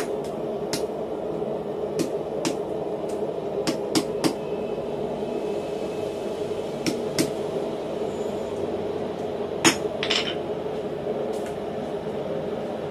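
Hand hammer striking a red-hot doubled steel knot on a steel anvil block: about a dozen light, irregular blows with a short gap near the middle, over a steady hum.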